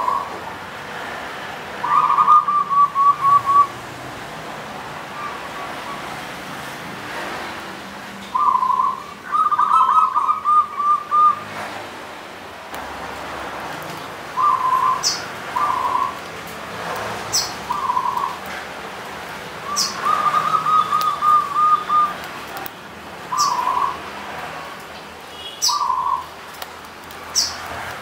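Zebra dove (perkutut) singing its cooing song: about ten short phrases of rapid trilled coos, three of them longer rolling runs, with brief high chirps in between.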